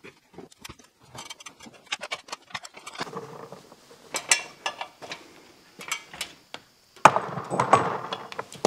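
Handling noises of shop work: small sharp clicks and knocks as a fitting on an overhead air line is worked by hand, then louder rubbing and knocking from about seven seconds in as a plastic-cased air hose reel is held and shifted against a concrete block wall.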